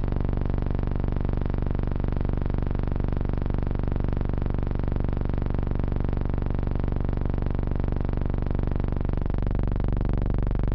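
A steady, loud engine drone. About nine seconds in, its low pitch wavers and shifts, and it cuts off suddenly.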